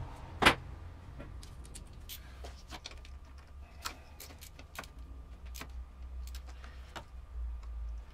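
Scattered sharp metallic clicks and taps of tools, screws and metal parts being handled while a new idle air control valve is fitted at the throttle body of an Opel X20XEV engine, with one loud knock about half a second in.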